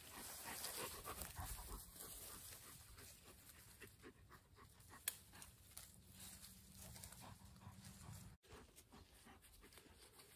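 Faint rustling and crackling of eucalyptus branches and leaves being pulled and gathered by hand, with small twigs snapping. There is one sharp snap about five seconds in.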